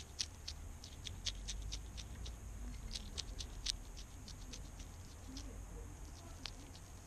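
European hedgehog eating from a dish, chewing with an irregular run of sharp little clicks and smacks, several a second.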